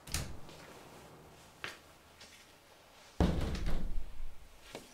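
Household knocks and thuds: a thump, a short knock about a second and a half later, then a louder, longer heavy clatter lasting more than a second.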